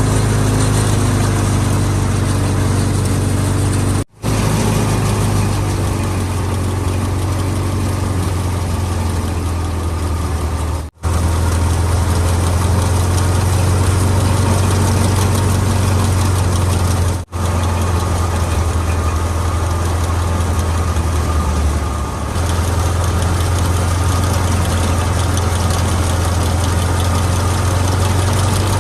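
Tractor diesel engine running steadily under load while driving a wheat thresher, a loud low drone mixed with the thresher's rattling noise, broken by three very short gaps.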